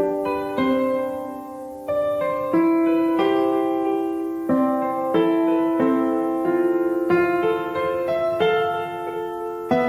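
Background music: a slow, gentle instrumental piano piece, single notes and chords sounding about every half second to a second and ringing on.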